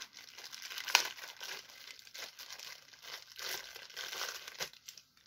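Clear plastic bag crinkling as it is handled and worked open by hand, with one sharp snap about a second in.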